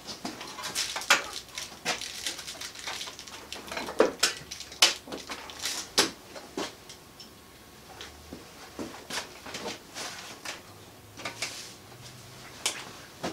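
Irregular knocks, clicks and metallic clinks as a CNC router table is levered off its levelling feet onto spring-loaded wheels, the loudest knocks coming a few seconds in.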